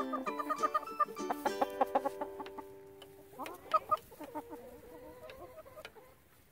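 Hen clucking: a rising call about three and a half seconds in, followed by softer clucks that fade. Plucked ukulele music plays in the first few seconds.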